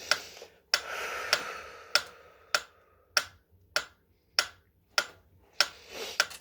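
Metronome ticking at an even tempo, about five ticks every three seconds, with a soft hiss under the first few ticks.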